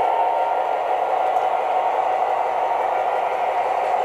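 MTH Premier O-gauge Southern Pacific F-3 diesel model set running steadily along three-rail track, with the Proto-Sound 2.0 diesel engine sound from the locomotive's speaker mixed with wheel and motor noise. The sound holds an even level throughout.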